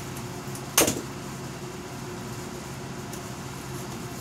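Steady low machine hum, with one sharp knock on the workbench about a second in.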